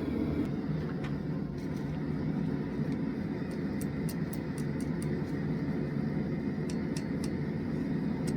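A forge running with a steady low rush, with a scattering of faint sharp ticks through the middle.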